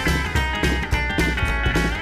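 Background music: a rock song with electric guitar over a steady drum beat.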